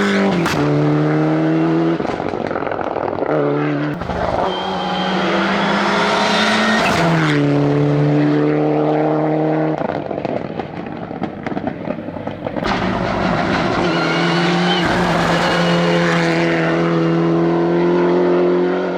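Mitsubishi Lancer Evo VIII rally car's turbocharged four-cylinder engine at high revs under full throttle, its pitch held steady for stretches and stepping between gear changes, with a few sharp cracks.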